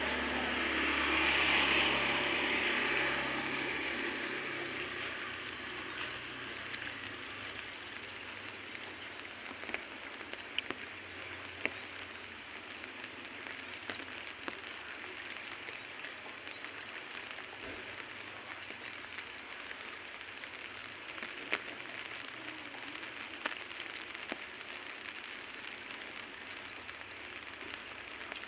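Steady patter of light rain, with a few louder single drops. A low rumble swells and fades during the first few seconds.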